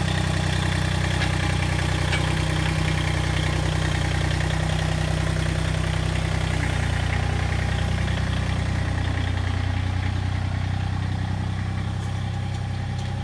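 Massey Ferguson compact tractor's diesel engine idling steadily, a little fainter near the end.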